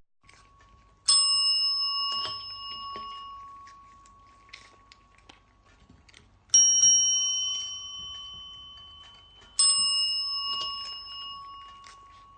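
A small metal bell struck three times, about a second in, past the middle and near the end. Each ring is clear and high, and dies away slowly over a few seconds.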